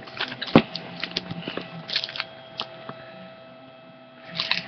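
Scattered light clicks and rustles of handling close to the microphone, the sharpest about half a second in, over a faint steady electrical hum.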